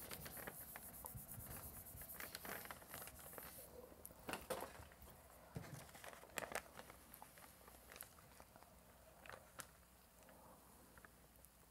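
Faint scratchy rubbing of a metal spoon burnishing the back of thin paper laid on an inked Tetra Pak plate, hand-pressing an intaglio print. This is followed by a few soft paper rustles and crinkles as the sheet is lifted and peeled off the plate.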